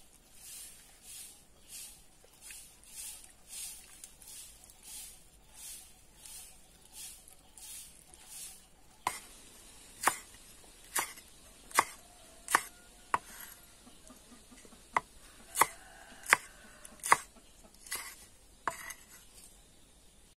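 Hands squeezing and rubbing shredded banana blossom in a bowl of water, a soft wet rustling that repeats a little more than once a second. About nine seconds in it gives way to a cleaver chopping green chillies on a wooden board: about a dozen sharp knocks, a little more than one a second.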